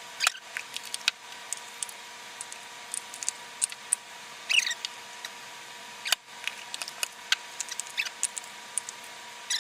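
Shaving cream foam being spooned into a measuring cup: scattered soft clicks and crackles, with a couple of brief squeaks about halfway through and near the end.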